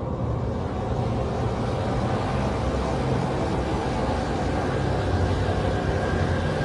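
A steady low rumbling drone with an even hiss above it, a dark horror ambience effect; the hiss swells in right at the start and then holds.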